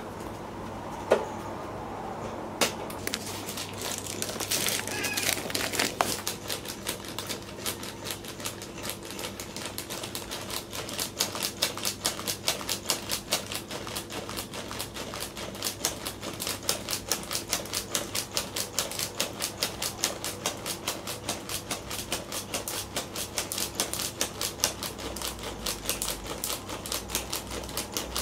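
Motorized cat toy, a furry tail poking out of a plastic snack bag, clicking rapidly and steadily, several clicks a second, as its mechanism jerks the tail about. A brief rustle about five seconds in.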